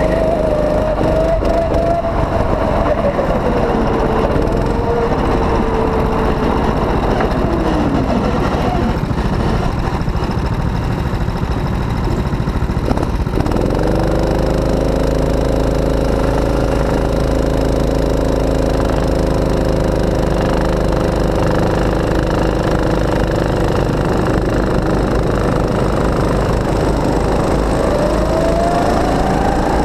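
Go-kart engine heard from on board the kart, slowing with its pitch falling over the first several seconds, then running low and rough. About thirteen seconds in it revs up and holds a steady pitch for a long stretch, then climbs again near the end as the kart accelerates.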